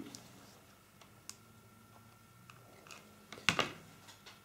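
A few light clicks and taps from small, hard, dried wreath decorations being handled and pressed into place, with one louder tap about three and a half seconds in.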